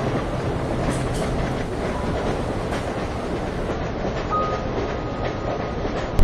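Steady rumble of a train carriage running along the rails, used as the on-board sound.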